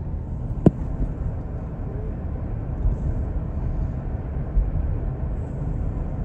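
Steady low road and engine rumble inside a moving car's cabin, with a single sharp click a little under a second in.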